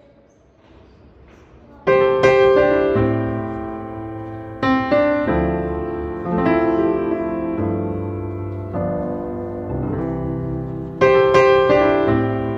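Background piano music: slow chords, each struck and left to fade, coming in about two seconds in after a faint opening.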